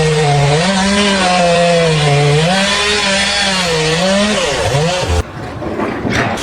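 A power saw cutting, its motor pitch wavering up and down under load, then cutting off abruptly about five seconds in.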